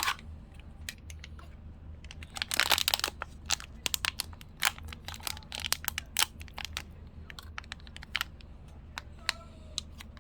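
Small cardboard blind box being torn open and its packaging crinkled by hand, with a longer tearing sound about two and a half seconds in and many sharp clicks and taps throughout.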